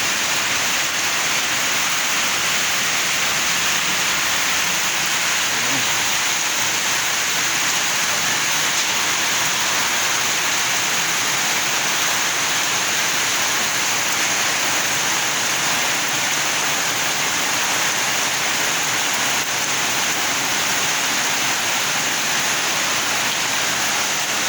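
Heavy tropical downpour: rain pouring down hard and without a break, a dense, even hiss at a steady level.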